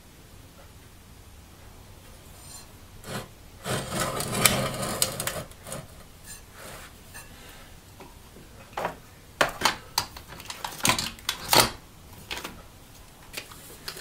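Handling noises on a wooden workbench: a scraping, rustling shuffle about four seconds in, then a string of sharp clicks and knocks in the second half.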